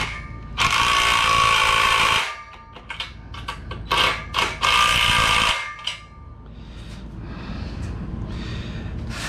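DeWalt 12V cordless impact driver running bolts into an aluminium-extrusion corner bracket: a motor whine with a fast rattling hammer. It runs in one long burst of about a second and a half, then two short blips and a second burst of about a second and a half.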